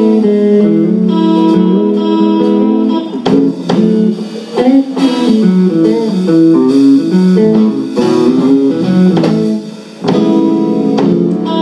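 Live band music led by a guitar picking a melodic instrumental intro line, with occasional sharp percussive hits and a brief drop in level about ten seconds in.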